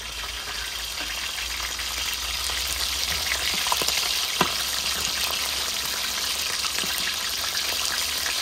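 Pieces of mullet frying in hot oil in a large aluminium pot: a steady sizzle that grows louder a few seconds in, with a few sharp clicks around the middle.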